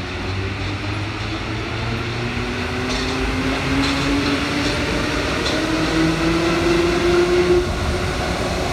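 MP73 rubber-tyred metro train accelerating, its motor whine rising steadily in pitch over running noise, with a few light clicks in the middle.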